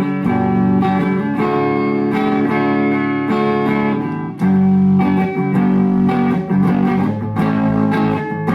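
Electric guitar played through an Orange Baby Terror solid-state amp head into a 12-inch Celestion Neo speaker cab: a steady run of picked chords and notes, each attack sharp, with brief dips between phrases.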